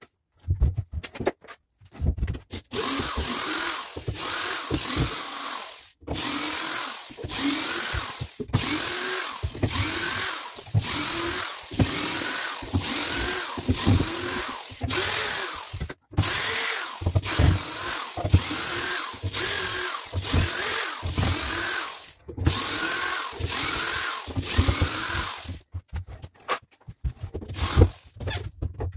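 Electric drill-driver backing the screws out of an OSB crate panel, run in many short bursts, its motor pitch rising and falling with each squeeze of the trigger. The bursts become shorter and choppier near the end.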